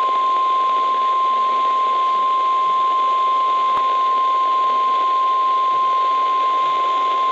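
Flood warning alert tone of a NOAA Weather Radio broadcast: the single steady 1050 Hz warning alarm tone, held unbroken over radio hiss, with one brief click about halfway through.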